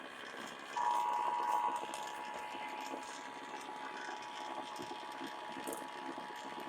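Emergency Alert System two-tone attention signal, 853 Hz and 960 Hz sounded together, heard off broadcast radio over a faint hiss. It starts sharply about a second in, is loudest for its first second, then holds steady at a lower level. The signal marks that an EAS message, here the required monthly test, is about to be read.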